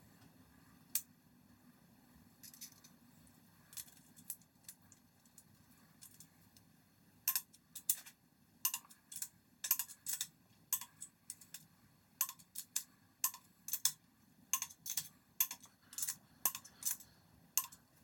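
Sharp clicks from a torque wrench tightening the crankshaft main cap bolts in sequence. A few scattered clicks come first, then about one or two a second from about seven seconds in.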